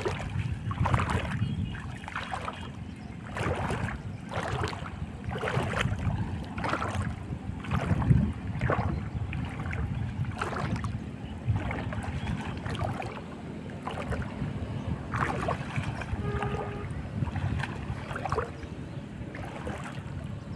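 Legs wading slowly through shallow, weedy water: a swish and splash with each stride, about one a second.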